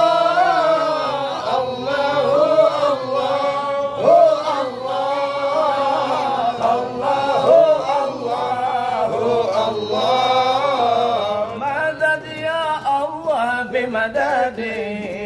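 A man's voice chanting a Sufi dhikr in Arabic, a melismatic invocation of God. He holds long, wavering, drawn-out notes, then moves to shorter, quicker phrases near the end.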